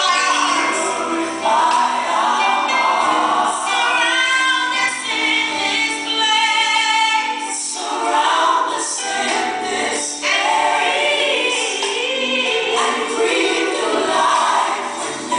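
Gospel song sung by a choir, with continuous singing throughout.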